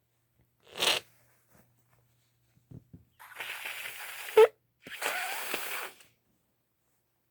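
A woman sneezing. There is a short sharp burst about a second in, then a long rushing breath that ends in a loud voiced sneeze about four and a half seconds in. A second long breathy rush through the nose follows it.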